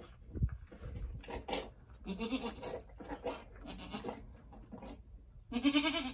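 Angora goat bleating several short times, the loudest call near the end.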